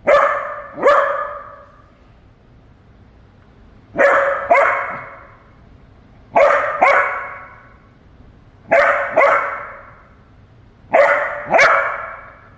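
A four-month-old puppy barking at a cat in pairs of two sharp barks, five pairs in all, spaced two to two and a half seconds apart.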